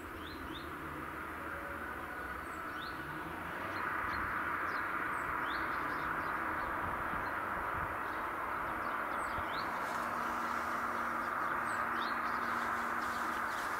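Small birds chirping in short, high, rising notes, scattered throughout, over a steady outdoor background rush that grows louder about four seconds in.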